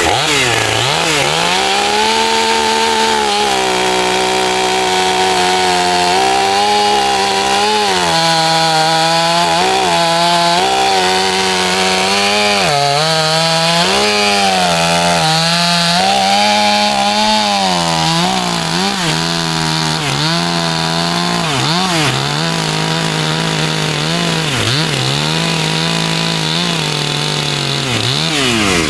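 Two-stroke chainsaw held at high revs while cutting through a log, its pitch dipping and recovering again and again as the chain bites into the wood, and running lower through the second half.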